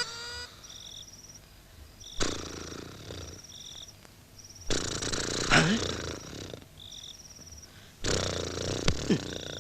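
A person snoring: three long snores, each about two seconds, with quieter breaths between them. Faint high chirps repeat in the background. The snores are the sound of the soft palate and uvula vibrating as air passes to the lungs.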